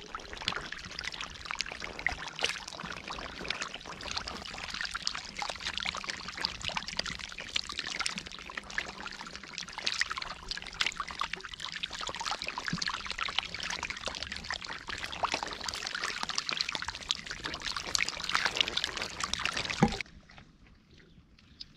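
Muddy water splashing and sloshing, dense and irregular with many small splats, as hands work through the mud. It cuts off abruptly near the end.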